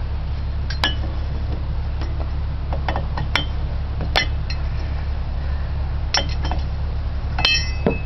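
Steel hand tools clinking against a steel bolt-on hub puller as its turning bar and wrench are taken off: about half a dozen sharp metal clinks, some ringing briefly, over a steady low hum.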